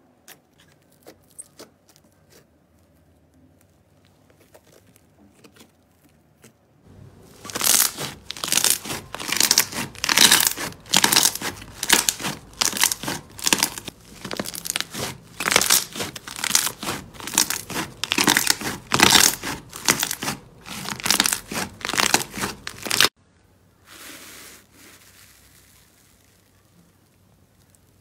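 Slime being squeezed and pressed by hand, crackling and popping in quick repeated bursts about two or three a second. The bursts start about seven seconds in and cut off abruptly about sixteen seconds later. Faint clicks come before them and soft rustling after.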